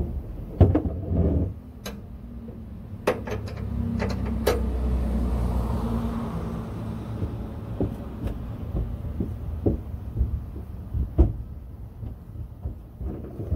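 Hand-held oil syringe pushing gear oil through its hose into the fill hole of a Mercedes Sprinter manual gearbox. Scattered sharp clicks and knocks from the syringe and hose being handled, with a longer low rough sound in the middle.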